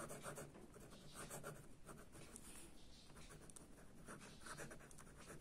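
Faint scratching of a ballpoint pen writing words on a ruled notebook page, in short irregular strokes.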